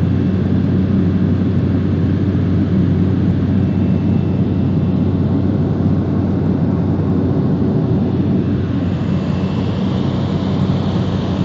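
DHC-2 Turbo Beaver floatplane's turboprop engine and propeller running steadily at high power: a loud, even, low drone. A rushing hiss grows over it near the end.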